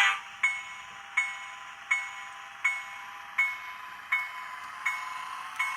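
Digitrax SDH166d sound decoder in a model F3A diesel locomotive playing its locomotive bell, ringing steadily at a bit under one and a half strikes a second over the quieter diesel engine sound, through the model's small onboard speaker.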